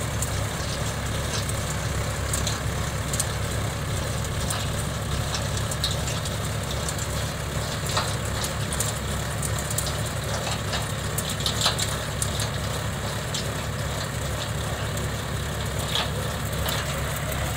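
Tractor's diesel engine running steadily under load as it pulls a trenching machine digging through sandy soil, with a few light clicks over the drone.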